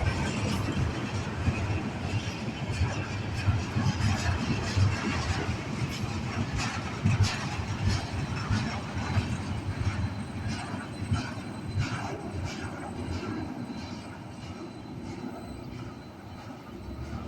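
Freight train cars rolling past: a steady rail rumble with many wheel clicks, growing quieter over the last few seconds.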